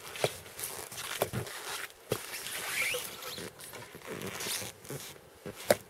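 Scratchy rustling and scraping, broken by several sharp knocks and a short rising squeak: handling a freshly caught burbot and fishing line at an ice hole.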